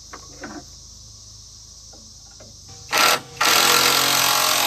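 Handheld power driver tightening a bolt on a sawmill: a short burst about three seconds in, a brief pause, then a longer steady run. Crickets chirr faintly underneath.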